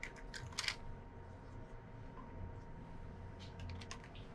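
Light clicks and clatters of hard plastic letter shapes being set down on a shredder's steel blades. A few sharp clicks come in the first second and another quick run of clicks near the end, over a faint low hum.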